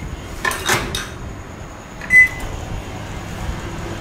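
A spoon clinks against the custard bowl a few times in the first second. About two seconds in, the microwave oven gives one short, high beep, over the oven's low steady hum.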